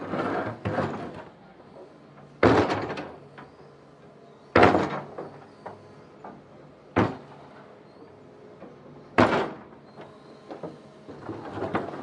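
Digger breaking up concrete: a series of loud crashes of breaking concrete, about one every two seconds, each trailing off briefly, over a steady low hum.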